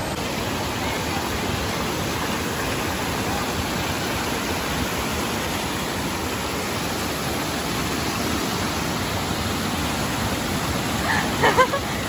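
Hot-spring water cascading steadily over travertine terraces, an even, continuous rush. A voice cuts in just before the end.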